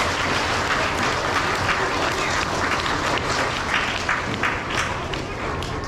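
A school assembly audience applauding an award winner: many hands clapping, tapering off near the end, with children's voices mixed in.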